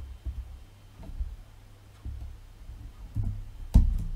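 Computer keyboard keystrokes heard as irregular dull thuds, a few a second, with one sharper, louder click a little before the end. A faint steady hum runs underneath.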